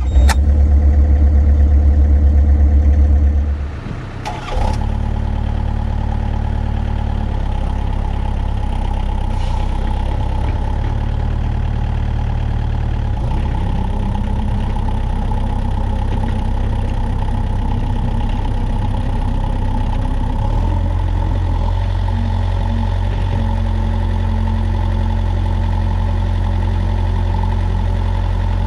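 Diesel engine of a compact construction machine running, strong and heavy for the first few seconds, then dipping briefly about four seconds in with a couple of clicks. It then settles into a steady run, its note dropping a little about twenty seconds in.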